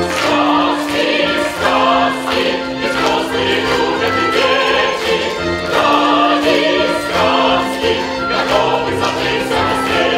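Voices singing in chorus over an orchestra: a number from a stage musical, with long held notes under the singing.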